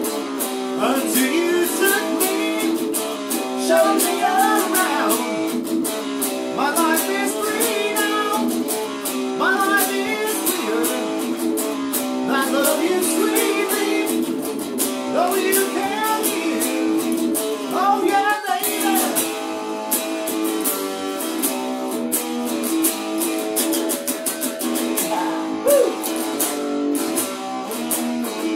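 Stratocaster-style electric guitar played live: lead lines with bent notes over held chords.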